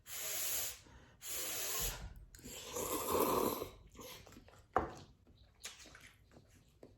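A person slurping instant cup noodles in three noisy sucking bursts, the last one longest, then softer mouth sounds of chewing with one sharp click about five seconds in.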